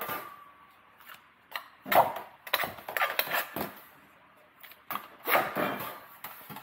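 Light knocks, taps and scrapes of a ruler and marking tools handled on a sheet of metal during layout, in a few short clusters with quiet gaps between.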